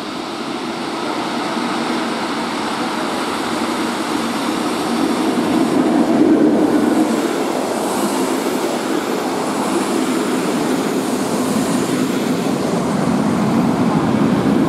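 Passenger train hauled by a MÁV V43 'Szili' electric locomotive rolling into the station: a steady rolling noise that grows louder about six seconds in.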